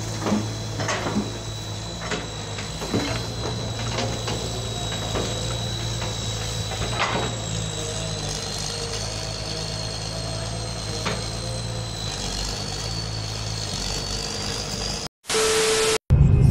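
Crawler excavator's diesel engine running steadily, with a thin high whine held over it and a few scattered knocks and cracks as the arm and bucket work. The sound cuts off abruptly near the end.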